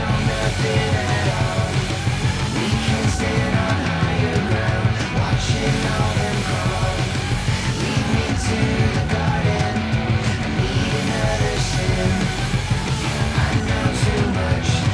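Rock song with electric guitar and a steady beat, with some singing.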